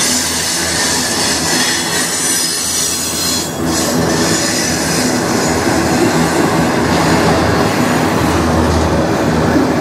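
Freight train of autorack cars rolling past close by, steel wheels running on the rails with a steady loud rumble and a high-pitched wheel squeal over it.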